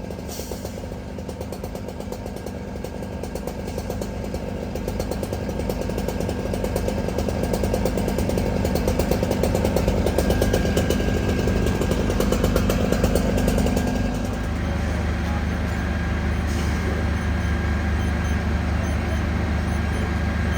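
Heavy fire-apparatus engine running steadily. It grows louder over the first dozen seconds, then settles to a different, lower steady note about 14 seconds in.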